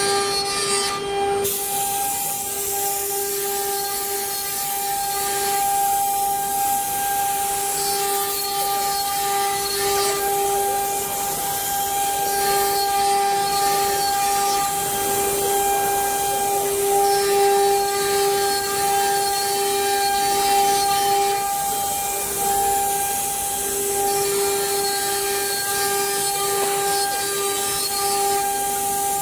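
CNC router spindle running with a steady whine while the router bit cuts wood, under a constant hissing cutting noise.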